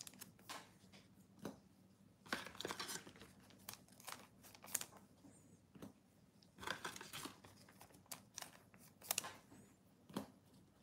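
Faint, intermittent crinkling and tearing of a foil trading-card pack wrapper being handled, in short irregular bursts.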